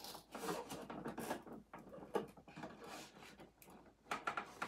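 Plastic and cardboard scraping, rubbing and clicking in irregular bursts as an L.O.L. Surprise! Glamper plastic toy camper is handled and a cardboard packaging insert is worked loose inside it.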